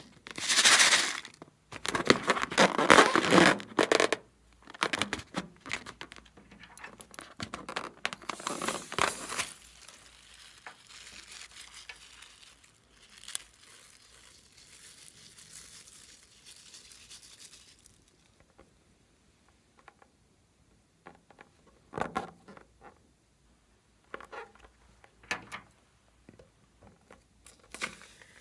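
Slime being squeezed and pulled by hand, making crackly, crunchy bursts. The handling is loudest for the first ten seconds, softens, then returns as short scattered crackles near the end.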